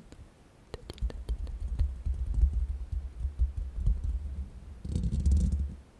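Hands rubbing and tapping directly on a microphone's mesh grille: deep, muffled handling rumble with scattered light taps. It starts about a second in and breaks off briefly near the end.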